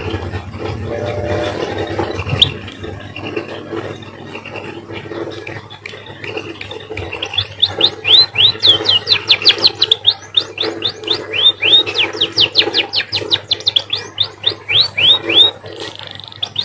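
Emprit finch singing: after a low hum, about seven seconds in it breaks into a fast, loud string of sharp downward-sweeping chirps, about five or six a second, in a canary-like song.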